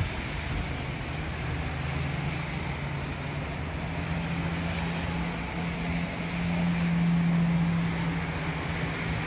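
A low, steady motor hum that swells about six seconds in, over a hiss of wind and street noise.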